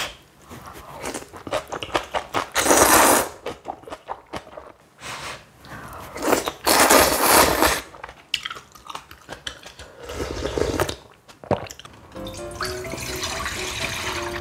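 Close-up eating sounds of noodles and kimchi: crunching bites and chewing, with two long, loud slurps about two and a half and six and a half seconds in. Background music with a steady melody comes in near the end.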